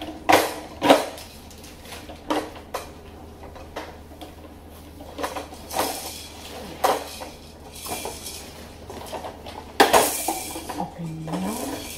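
Hard plastic parts of a VTech First Steps baby walker knocking and clicking together as they are handled and fitted during assembly. The knocks come at irregular intervals; the loudest are about a second in and again near ten seconds in.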